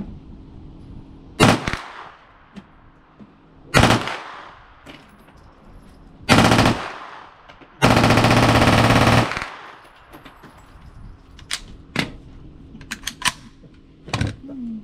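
Palmetto State Armory AKV 9mm carbine bump-fired from the shoulder in four rapid strings of shots: two brief ones, a longer one about six seconds in, and the longest, about a second and a half of closely spaced shots, near eight seconds, its rate picking up at the end. Then light clicks and knocks as the emptied carbine is handled and set on the wooden bench.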